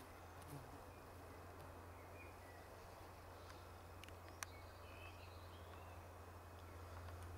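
Near silence in a grassy meadow: a steady low hum under faint outdoor background, with a few faint distant bird chirps in the middle and a single sharp click about four and a half seconds in.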